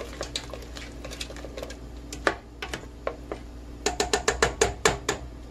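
Black plastic spoon stirring okra in tomato sauce and clicking against a stainless steel cooking pot, with a quick run of about ten taps near the end.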